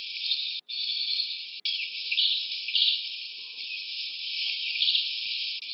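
Dense forest insect chorus buzzing steadily, with louder swells now and then. It cuts out abruptly for a moment twice in the first two seconds.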